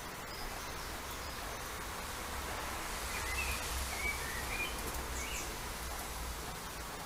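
Outdoor garden ambience: a steady hiss of background noise over a low rumble, with a few short, faint bird chirps partway through.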